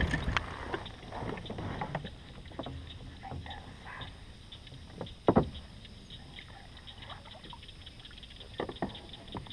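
Handling noises aboard a plastic fishing kayak: scattered small clicks and knocks from rod, reel and gear against the hull, with a louder knock about five seconds in.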